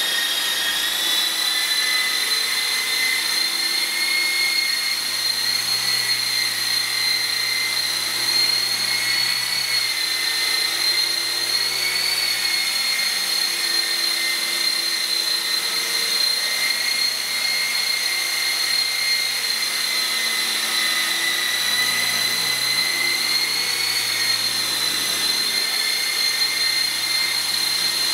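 E-Sky Hunter micro RC helicopter's electric motor and rotor running at flight speed: a steady high whine whose pitch wavers slightly as it hovers and moves about.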